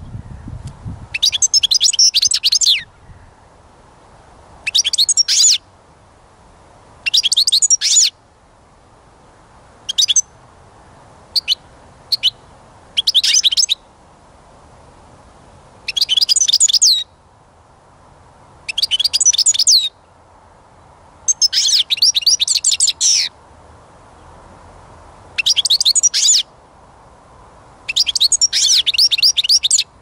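European goldfinch (Carduelis carduelis) singing: repeated phrases of rapid, high twittering song, each one to two seconds long, with pauses of a second or two between them.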